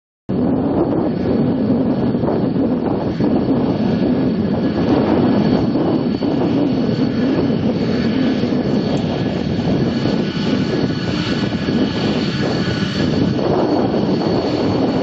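Boeing 747-400F freighter's four jet engines running at high power as it departs: a loud, steady rumbling roar with high whining tones over it. The sound cuts in abruptly just after the start.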